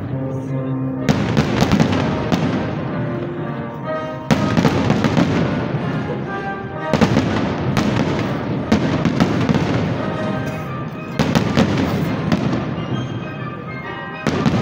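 Aerial fireworks at the climax of a display. A heavy bang comes every few seconds, with dense crackling and popping between the bangs.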